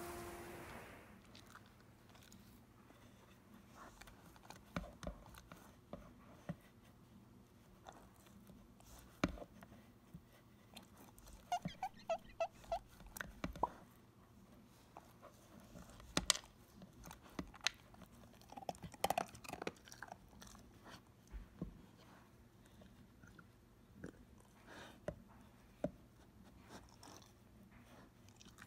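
A husky eating from a plastic slow-feeder bowl: scattered, irregular crunches and clicks of chewing and biting, with quiet gaps between.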